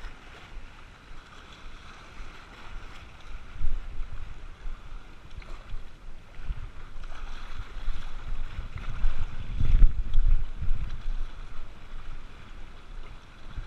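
Small sea waves washing and splashing over shore rocks, with wind buffeting the microphone in gusts, loudest around ten seconds in.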